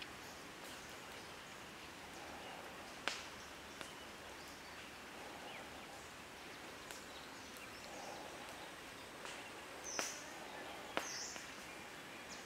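Quiet, steady outdoor background noise with a few sharp clicks from handling a raw octopus on a bamboo skewer. The loudest click comes about three seconds in, and two more come near the end.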